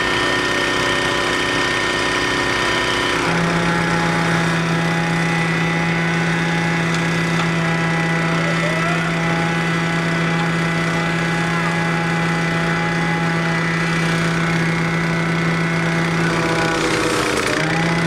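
Heavy wrecker's engine running steadily as it lifts an overturned tanker truck upright. Its pitch steps up to a higher steady speed about three seconds in, and briefly drops and recovers near the end.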